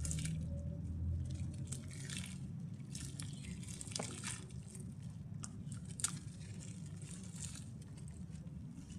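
Wet, grainy mud crumbling in water: scattered soft crunches and crackles with squishing, and one sharper crack about six seconds in.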